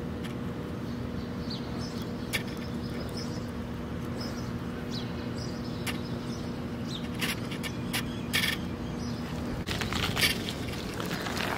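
Crinkling and rustling of a plastic bag with scattered sharp clicks, heavier in the second half, over a steady low hum that stops shortly before the end. Near the end a cat is eating dry cat food off the bag.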